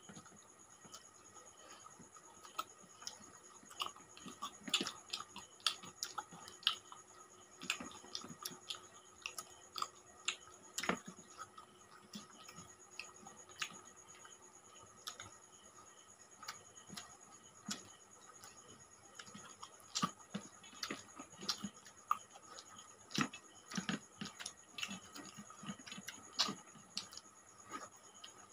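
Close eating sounds of people eating rice and curry by hand: irregular soft clicks and smacks of chewing and lips, scattered without a steady rhythm.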